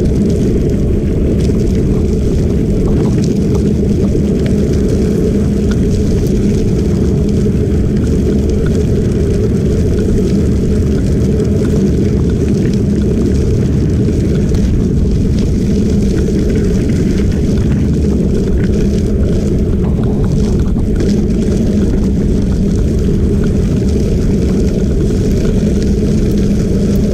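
Wind rushing over the microphone of a camera moving at about 15 mph along a gravel trail: a loud, steady, low rumble that does not let up.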